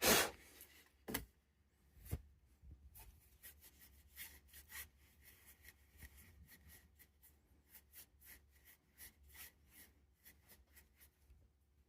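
Light, irregular clicks, taps and rubbing of small parts being handled while a handheld computer is taken apart or reassembled, opening with a short noisy burst.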